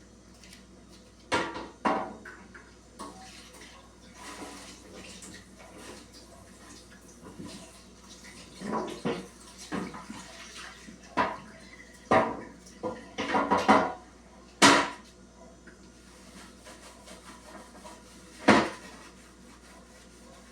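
Dishes and kitchen containers knocking and clattering as they are handled and set down, in irregular bursts with quiet gaps between; the sharpest knock comes about two-thirds of the way through.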